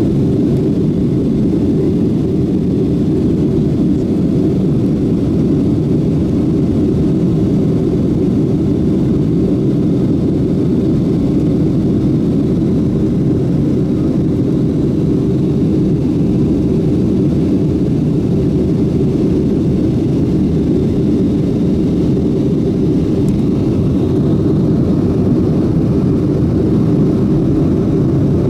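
Steady cabin noise of a Boeing 737-700 climbing out after takeoff: the low, even drone of its CFM56-7B jet engines and the rush of air past the fuselage, heard from a window seat behind the wing.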